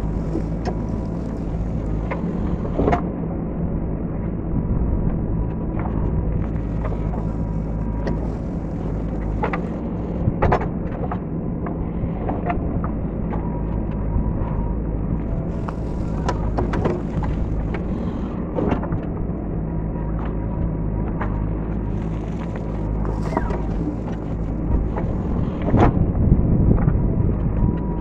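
JCB 3DX backhoe loader's diesel engine running steadily under hydraulic load while the backhoe digs coal. Sharp knocks and clanks come now and then, a few seconds apart, as the bucket works the coal and lumps fall. The loudest burst is near the end.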